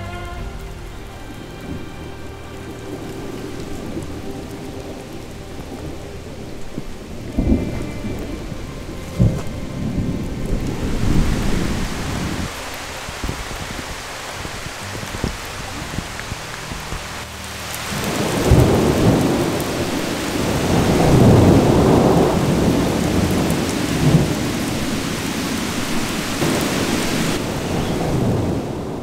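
Thunderstorm: rain falling, turning heavier about eleven seconds in. There are two sharp thunder cracks early on, then long, loud rolls of thunder through the second half.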